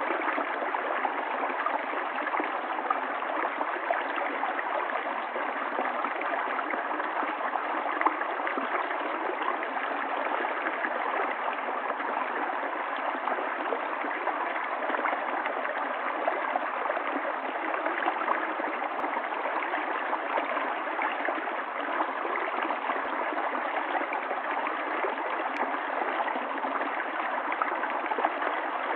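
Water running in a stream, an even rushing flow that goes on without a break or change.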